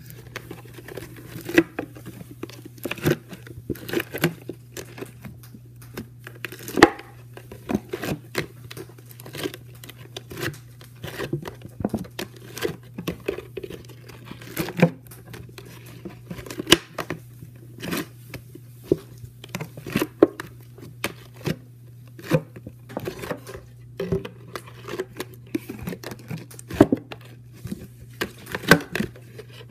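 Sticky borax slime being worked by hand and scraped off the sides of a clear bowl: irregular wet crackles, tearing and squelching sounds with taps against the bowl, over a steady low hum.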